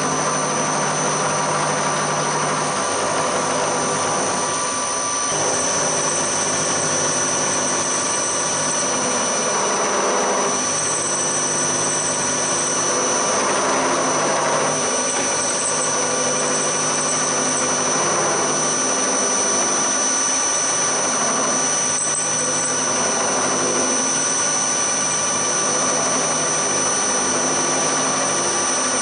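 Hafco HM 54GV milling machine running with its end mill cutting aluminium: a steady machine drone with a constant high whine, the cutting noise swelling and easing now and then.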